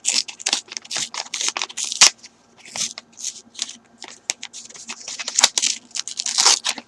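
A mailed package being opened by hand: rapid rustling, crackling and sharp clicks of the packaging, with a brief pause a little over two seconds in.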